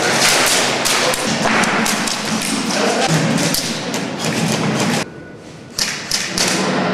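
Airsoft guns firing bursts of shots, mixed with the knocks of pellets striking walls and barriers. The sound drops out briefly about five seconds in.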